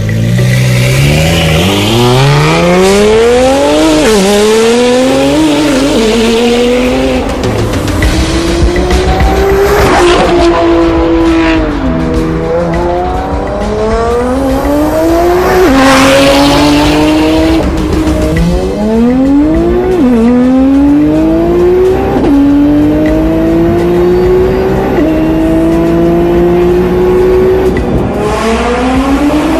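GT-R sports car engine accelerating hard through a run of upshifts: the engine note climbs steadily, drops sharply at each gear change and climbs again. Short, loud bursts of noise break in about ten seconds in and again about halfway through.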